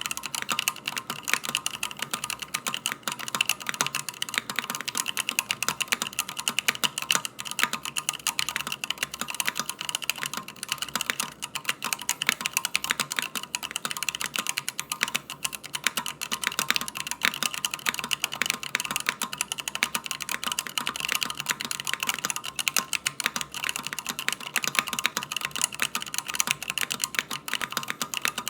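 Continuous fast typing on a Drop SENSE75 mechanical keyboard: a dense, steady stream of key clicks.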